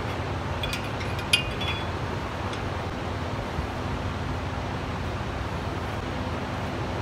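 A few light metallic clinks with a short ring, about a second in, as an axle nut is handled and fitted inside a truck wheel hub. Underneath is a steady low hum.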